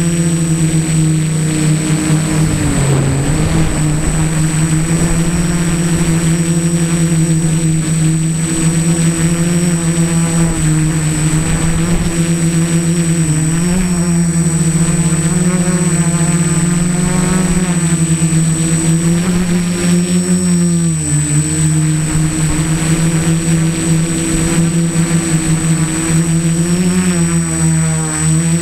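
Mini tricopter's electric motors and propellers buzzing steadily in flight, heard close up from the keychain camera on its frame. The pitch dips briefly about 3, 13 and 21 seconds in, over a thin steady high whine.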